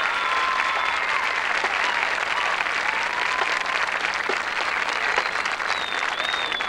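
Large crowd applauding steadily, with scattered cheers and whistles.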